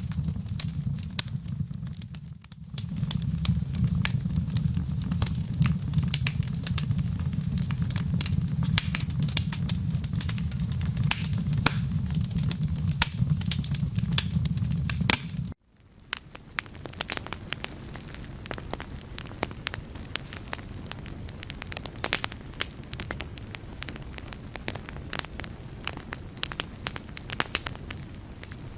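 Wood fire crackling with a steady low rumble. About fifteen seconds in, the sound cuts off abruptly and comes back quieter, the crackles going on over a soft hiss without the rumble.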